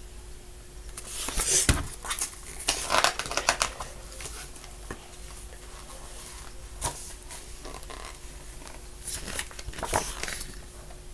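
Pages of a hardcover picture book being turned and the book handled close to the microphone: several bursts of paper rustling and swishes, loudest about a second and a half in, again around three seconds and near the end.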